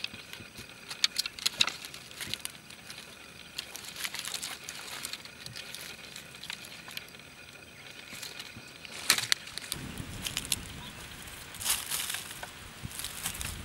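Dry sticks and brush crackling and snapping as they are gathered and broken by hand, with rustling and footsteps on dry debris. A few sharp snaps stand out, about a second in, about nine seconds in and near the end.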